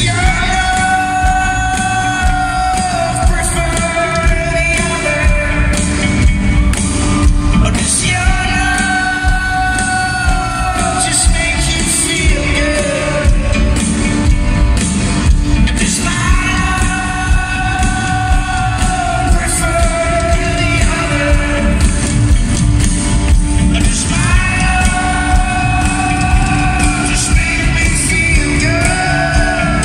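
Live folk-rock band playing at full volume, heavy in the bass: a singer's long held phrases over banjo, keyboard and a steady drum beat, with the echo of a large hall.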